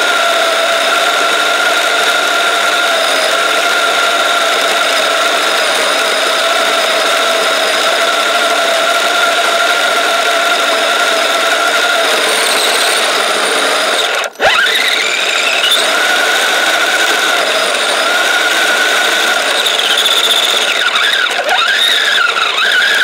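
Kyosho Blizzard RC snowcat's motor and drivetrain running with a steady high whine. About 14 seconds in it cuts out for an instant, then the pitch rises again as it speeds up, and it changes pitch a few more times near the end.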